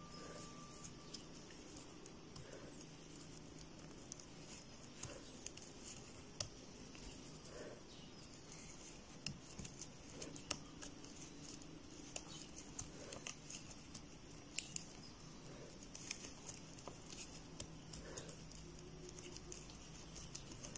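Faint rustling and soft clicks of a crochet hook pulling t-shirt yarn through stitches, with a soft scrape about every two and a half seconds as each single crochet stitch is worked.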